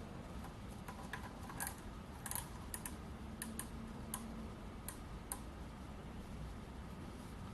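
Light, irregular clicks and taps from a Mitutoyo micrometer being handled and closed on a turned steel workpiece to measure it.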